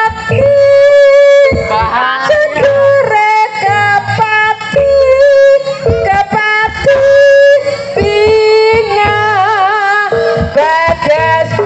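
Javanese jaranan music played loud over a sound system: a high melody of long held notes that bend and waver, over a low drum beat.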